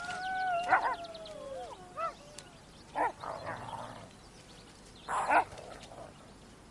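Ethiopian wolves calling: a long gliding howl in the first two seconds, then short yelps about 2, 3 and 5 seconds in.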